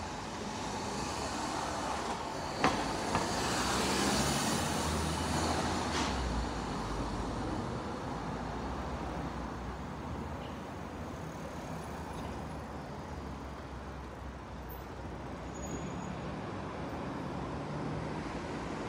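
Street traffic noise, steady, with a vehicle passing and swelling louder about four to six seconds in. A single sharp click sounds about two and a half seconds in.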